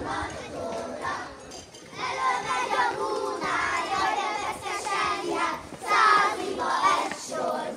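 Many children's voices at once, calling and chattering over one another.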